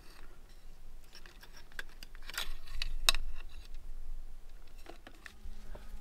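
Scattered clicks and rustles of hands working the wires and plastic connectors inside a sawmill's electrical control panel. The loudest click comes about three seconds in.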